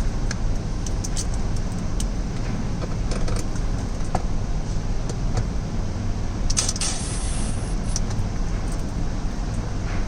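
Scattered light clicks and knocks of plastic console parts being handled and fitted, with a brief louder scrape or rustle about six and a half seconds in, over a steady low rumble.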